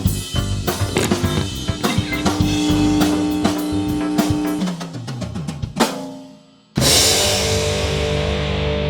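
Background music with a busy drum kit beat (kick, snare and rimshots) under held notes; it drops away nearly to silence about six seconds in, then a loud sustained band chord crashes in.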